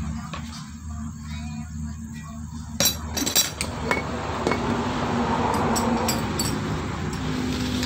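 Metal starter-motor parts clinking and knocking against each other as they are handled and fitted together, with a cluster of sharp clinks about three seconds in and a few more around five to six seconds. A steady low hum runs underneath.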